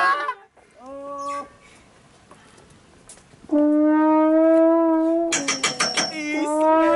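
A brass instrument plays a short note, then after a pause holds a long steady note. Near the end there is a quick run of clicks, then another held note.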